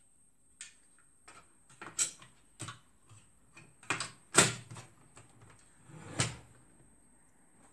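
Plastic cover plate being pressed and snapped onto a Xerox 3370 fuser unit: a series of sharp plastic clicks and knocks, the loudest about four and a half seconds in.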